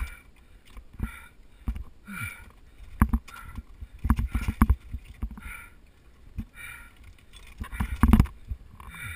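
A climber breathing hard, about one breath a second, while crampons and ice tools knock against the ice and climbing gear clinks during a lower-off down an ice fall. The knocks come in clusters a few seconds in and again near the end.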